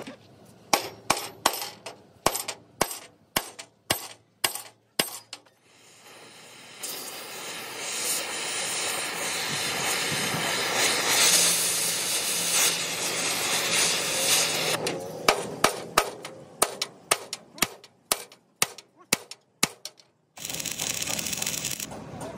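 Hammer blows ringing on a steel truck chassis rail, about three a second. Then an oxy-fuel cutting torch hisses steadily for several seconds as it cuts through a rivet head, followed by another run of hammer blows. Near the end an electric arc welder crackles steadily.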